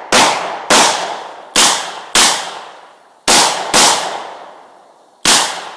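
Pistol shots fired in quick, uneven succession: seven shots, mostly in pairs about half a second apart, each followed by a short echoing tail.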